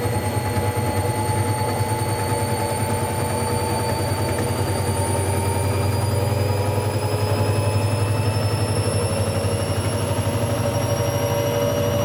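Hoover Logic A3670 washing machine spinning: a steady low hum from the drum, with the motor's whine climbing slowly in pitch as the drum gathers speed.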